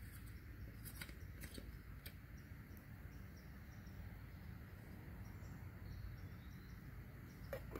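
Quiet summer woodland ambience: insects chirping in a faint, evenly spaced, steady pattern over a low background rumble, with a few faint clicks in the first couple of seconds.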